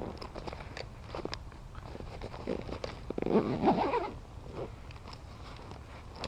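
Rustling and crunching handling noises with scattered clicks, loudest about three to four seconds in.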